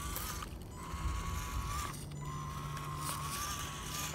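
Electric motor and gearbox of a WPL Ural RC crawler truck whining steadily under throttle as it crawls over rock. The whine wavers slightly and cuts out briefly twice, about half a second in and about two seconds in.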